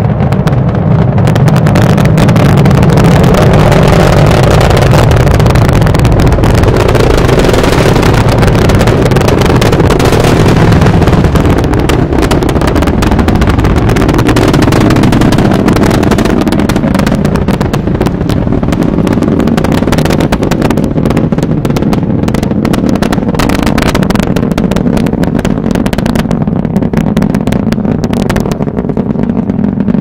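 Space Shuttle Atlantis's launch heard from about three miles away: the deep, continuous rumble and crackle of its solid rocket boosters and main engines, very loud. The crackle stands out more in the second half as the sound eases off a little.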